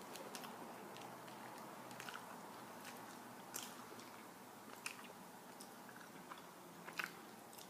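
Faint close-up chewing of a chicken Caesar wrap, with a few short, sharp wet clicks scattered through over a steady low hiss.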